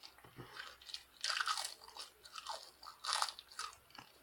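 A person biting and chewing crunchy food close to the microphone: two louder crunches, about a second in and about three seconds in, with small mouth clicks between.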